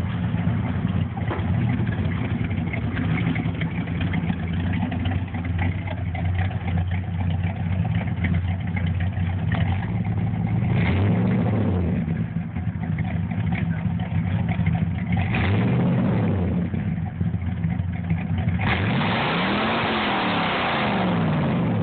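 1979 Ford F-150's 302 V8 running cold on straight pipes, just started after two months unused. It idles steadily, is revved briefly twice (about eleven and fifteen seconds in), then revved higher and longer near the end before dropping back.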